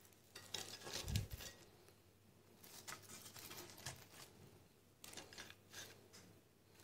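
Faint kitchen handling sounds as whole grilled mullet are laid by hand onto a serving platter sprinkled with seasoning: a soft low thump about a second in, then light taps, scrapes and rustles.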